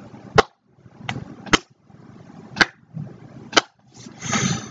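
A person making loud kissing smacks with the lips: five sharp smacks at uneven spacing, then a short breathy rush near the end.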